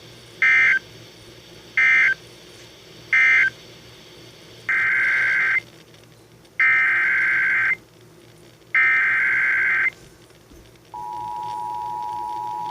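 Emergency Alert System tones over broadcast radio. First come three short buzzing data bursts, the end-of-message code, then three longer bursts of about a second each, the SAME header starting the repeat of the warning. Near the end the steady two-tone attention signal begins.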